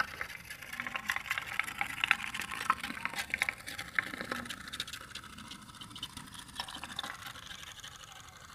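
Homemade tin-can pop-pop boat engine running on water, making a rapid, uneven train of light clicks that fade toward the end.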